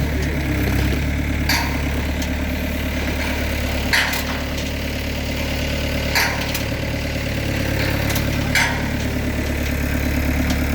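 Bobcat skid-steer loader's diesel engine running steadily. Four sharp knocks come about every two seconds.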